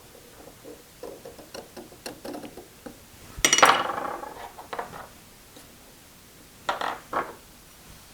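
Metal pieces clinking and rattling as they are handled on a workbench, with one loud ringing clank about three and a half seconds in and two sharp clinks near the end.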